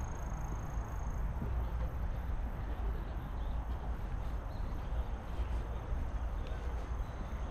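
Steady outdoor background noise dominated by a deep low rumble, with a faint high whine that stops about a second in.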